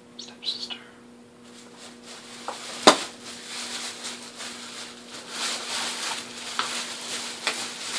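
Rustling and scraping of gift packaging being rummaged through and a cardboard box picked up, with a sharp knock about three seconds in and scattered clicks.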